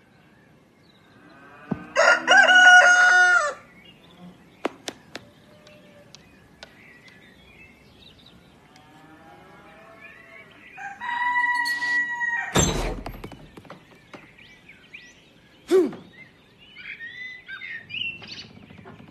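A rooster crowing twice, once about two seconds in and again around eleven seconds, each crow a drawn-out call lasting over a second. A sharp knock follows just after the second crow, and faint chirps come near the end.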